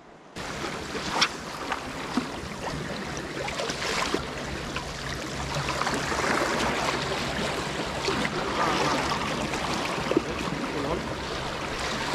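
Sea water washing against the shore: a steady rushing hiss with scattered small splashes, cutting in abruptly just after the start.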